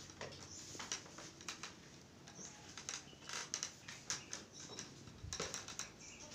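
Faint, irregular light clicks and taps, several a second, coming in uneven clusters.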